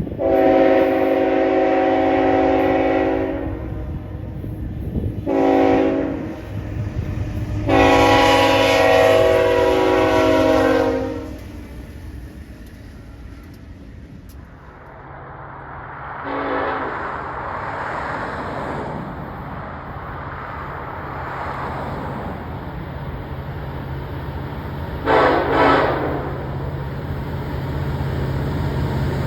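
Locomotive air horn sounding a crossing signal: a long blast, a short one, then another long one. After that comes the steady rumble and rail noise of the train passing, with two brief horn toots.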